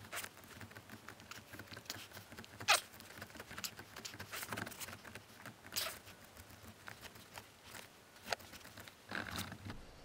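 Faint scattered clicks and scrapes of a wooden ball shift knob being screwed by hand onto the threaded metal shift lever, with one sharper click a little under three seconds in.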